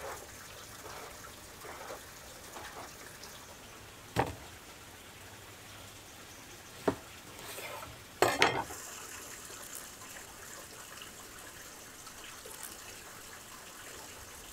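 Knife cutting fish into pieces on a board: a few sharp chops spaced seconds apart, the loudest a quick double about eight seconds in, over a faint steady hiss.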